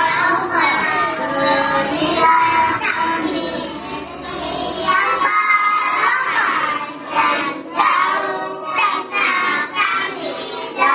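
A children's song: a child's voice singing over music.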